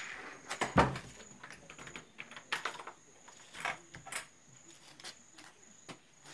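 Irregular knocks and clatter of a tent door and its fittings being handled, the loudest a thump about a second in, over steady high-pitched cricket chirping.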